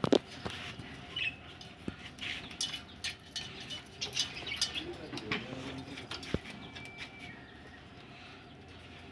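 Pet budgerigars chirping and chattering, with many short chirps and sharp clicks. The sound thins out over the last couple of seconds.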